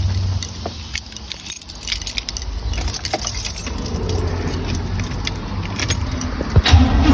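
A 1987 Pontiac Grand Prix engine idling with a low rumble, with keys jangling and light clicking over it. The rumble dips about a second in, and near the end the engine gets suddenly louder.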